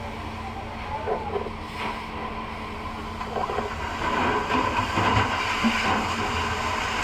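Steady mechanical rumble and hiss of a fire scene, with faint distant shouting; it grows louder about four seconds in.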